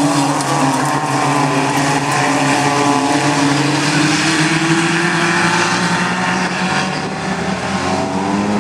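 Engines of several small hatchback hot rod race cars running hard together, their overlapping notes rising and falling as the pack laps the dirt track.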